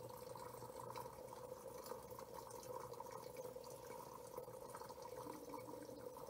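Hot spring water trickling steadily into a soaking tub, where the spring is piped in to bubble up and run out through the overflow. It is faint, with a steady hum underneath.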